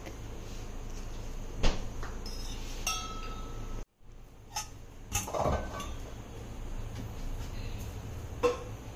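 Steel kitchenware clinking: a ladle knocking against a steel pot and a metal cake mould, a few separate clinks, one with a short ring about three seconds in.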